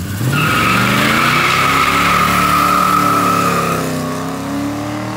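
Car engine revving up and holding high while the tyres squeal, as in a burnout. The squeal stops about four seconds in and the engine runs on.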